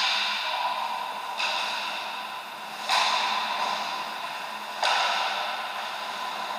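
Ice hockey skate blades scraping hard across the ice: four sudden hissing scrapes about one and a half to two seconds apart, each fading away over a second or so.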